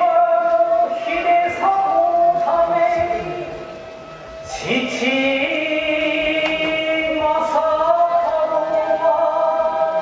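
Kagura chant sung in long held notes that step and slide between pitches, breaking off around three and a half seconds in and starting a new phrase with an upward slide about a second later.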